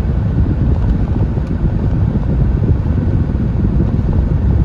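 Steady low rumble of engine and road noise inside a moving MG TF's cabin.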